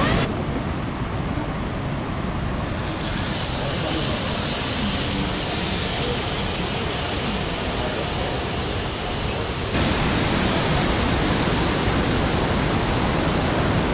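Large waterfall, a steady rushing roar of falling water. The roar shifts abruptly in tone just after the start and again about ten seconds in.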